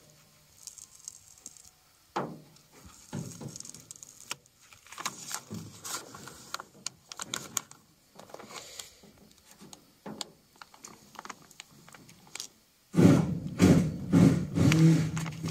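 Paper stencil backing crackling and rustling as it is peeled back, with small scrapes and clicks of a plastic squeegee rubbing the stencil onto the door. Near the end a much louder, low noise comes in.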